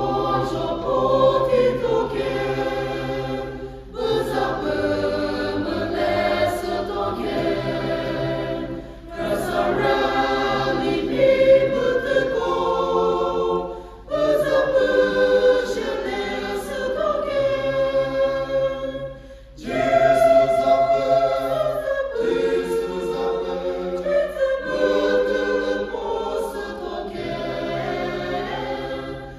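Mixed choir of men and women singing together, in long phrases of about five seconds separated by brief pauses for breath.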